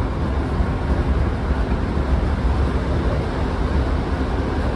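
Inside the passenger saloon of a Class 150 Sprinter diesel multiple unit: a steady deep rumble of the underfloor diesel engine and running gear, with a rushing noise over it.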